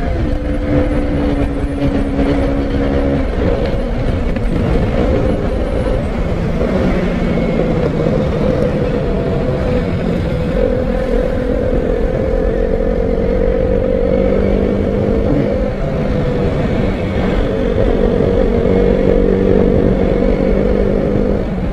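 Motorcycle engine running steadily while riding at road speed, its pitch drifting slightly up and down with the throttle, over a constant rush of wind on the microphone.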